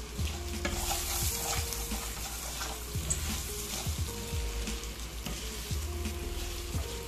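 Rice frying in hot oil in a pan, sizzling steadily with short scraping clicks as it is stirred; the rice is being toasted toward a golden brown before any liquid is added.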